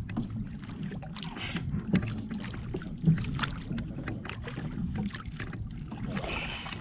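Water sloshing and lapping against a small wooden outrigger canoe on open sea, with wind on the microphone. Scattered sharp knocks and clicks sound through it, the loudest about three seconds in.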